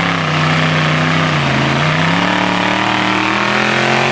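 Rock-crawler buggy's engine under heavy throttle as it climbs a rock ledge with its rear tire spinning. The engine pitch sags about a second and a half in, then climbs steadily.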